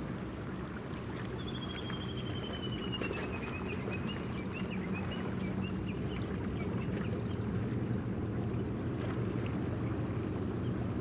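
Steady low drone of the helicopter destroyer JS Kaga's gas-turbine propulsion carrying across the water, slowly growing louder. About one and a half seconds in, a bird gives a trill of rapid high notes that falls in pitch over about three seconds.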